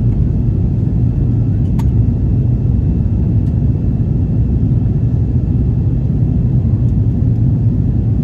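Steady low cabin rumble of an Airbus A330-200 in flight shortly after takeoff: its Rolls-Royce Trent 700 engines and the airflow past the fuselage, heard from a window seat. A faint click sounds about two seconds in.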